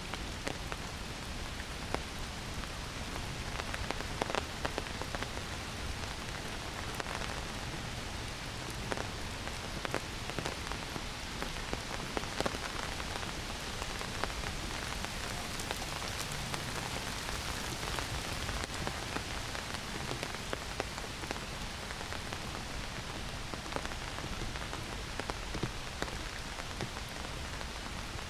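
Rain falling heavily in a forest: a steady hiss with many scattered sharp drop hits.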